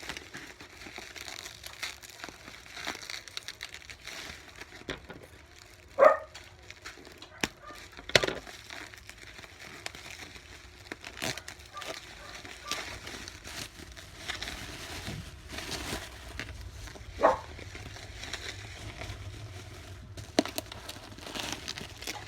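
Packaging crinkling and rustling as it is handled and pulled apart during an unboxing, with scattered small crackles and clicks. Sharper, louder knocks come about six and eight seconds in and again around seventeen seconds.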